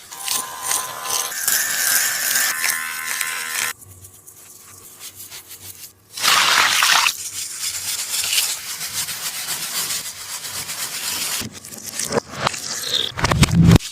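Handmade taba squishy toys being squeezed and pressed, giving a crinkly, crackling squish in several short takes, with sharp clicks and a louder thud near the end.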